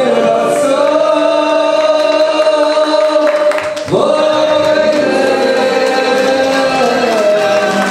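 Singing with music: long held notes, with a short break about halfway through before the next held note.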